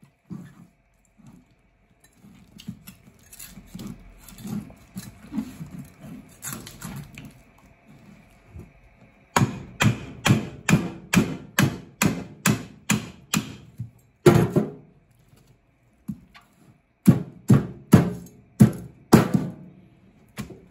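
Wooden mallet striking the back of a knife to split a yellowtail head on a plastic cutting board: a steady run of sharp knocks about two a second, one heavier thump, then a few more knocks near the end. Before the knocking, softer scraping and tapping as the blade works into the head.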